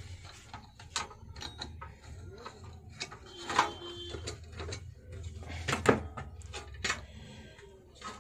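Irregular clicks, taps and rattles of hand tools and wires being worked while making the wiring connections on a voltage stabilizer. The loudest knocks come about three and a half and six seconds in, over a low steady hum.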